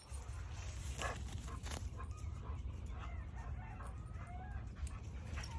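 Chickens clucking in the background: many short, faint calls scattered throughout, over a steady low rumble.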